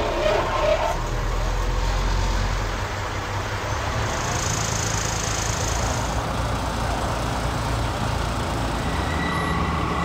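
An old Hyster forklift's engine running steadily as it lifts a loaded pallet off a trailer, mixed with a semi truck's engine. A high hiss runs for about two seconds, some four seconds in.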